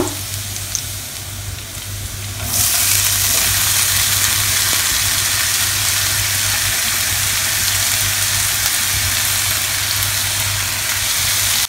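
Chopped onions tipped into hot sunflower oil in a wok, frying with garlic and ginger: the sizzle jumps to a loud steady hiss a couple of seconds in and holds, over a low steady hum.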